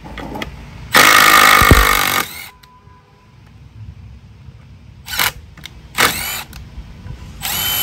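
Milwaukee M12 brushless impact driver (3453-20) on its speed setting 2, driving a wood screw into a wooden block. It runs in one loud burst of about a second and a half near the start, gives two short bursts about five and six seconds in, and starts running again near the end.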